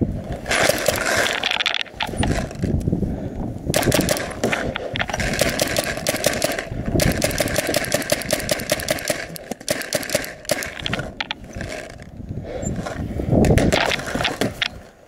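Paintball markers firing rapid strings of shots, a fast run of sharp pops with short lulls between strings.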